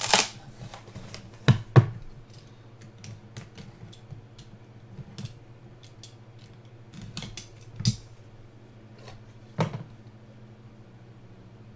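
Trading-card box and cards being handled: scattered clicks, taps and knocks, with a few sharper knocks near the start, about a second and a half in, and around eight and nine and a half seconds in, over a faint steady hum.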